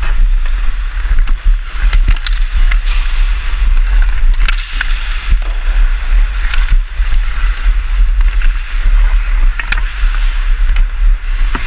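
Ice-hockey skate blades carving and scraping on the ice in a rhythmic swishing, under heavy wind rumble on a helmet-mounted camera's microphone. Sharp clicks of the stick on the puck and ice come through several times.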